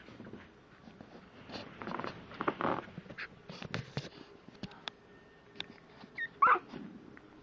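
Seven-week-old Yorkshire terrier puppy giving one short high cry that falls in pitch, about six and a half seconds in. Before it there are scuffling noises and a few sharp clicks.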